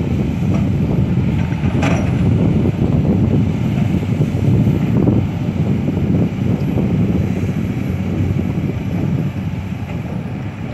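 Komatsu PC200 hydraulic excavator's diesel engine running steadily under load as it works the bucket across the ground, with wind on the microphone. A brief knock about two seconds in.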